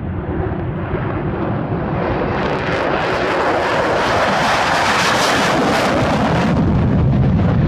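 F-16 fighter jet's single jet engine at takeoff thrust as it rolls past and lifts off. The jet noise grows louder to a peak about five seconds in, then the high hiss falls away about six and a half seconds in, leaving a low rumble.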